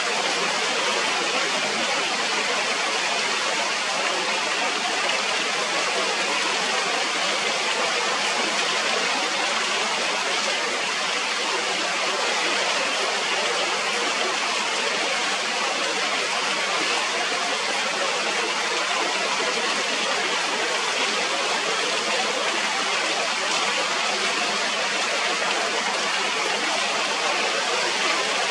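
Heavy rain pouring down steadily, an even hiss with no breaks.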